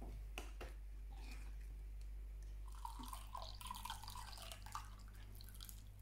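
Milk poured through a mesh tea strainer into a glass, trickling and dripping for about three seconds, after a few light clinks near the start.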